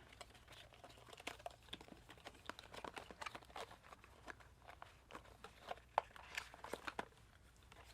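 Packaging being handled and searched through: faint, irregular crinkling with small clicks and taps.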